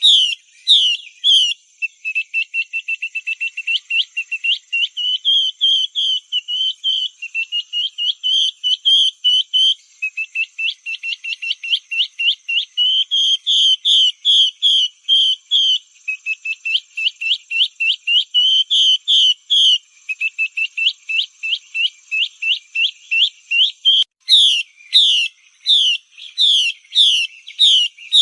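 Recorded calls of a female Chinese hwamei played as a lure sound: long runs of short, high, whistled notes repeated in quick succession. Slower, fuller notes at the start and again near the end, with faster rattling runs between.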